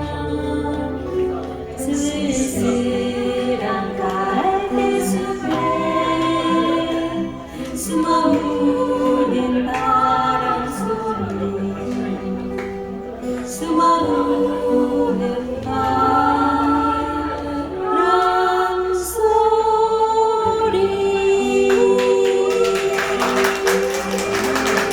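Several women singing a slow Korean ballad together in harmony, holding long notes, over acoustic guitar accompaniment. A denser burst of strokes comes in during the last few seconds.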